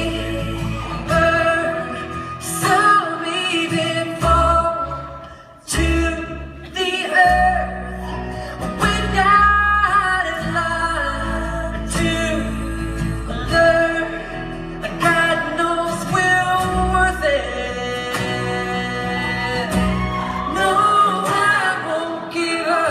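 Live concert music: singing over guitar accompaniment, with a brief drop in volume about five seconds in.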